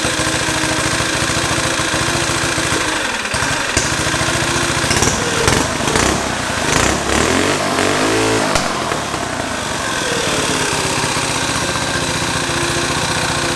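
Predator 212 single-cylinder four-stroke engine on a mini bike running, revved up and back down about five to nine seconds in, with a few sharp cracks during the revving, then settling back to a steady idle.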